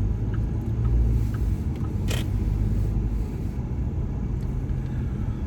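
Steady low rumble of a vehicle driving, engine and road noise heard from inside the cab, with one brief hiss-like noise about two seconds in.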